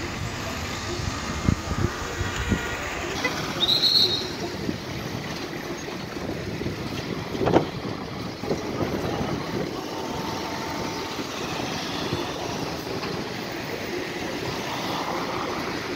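Street traffic: cars and large tour coaches driving slowly past, with engines running under a steady traffic noise. A brief high squeal comes about four seconds in and a sharp knock about halfway through.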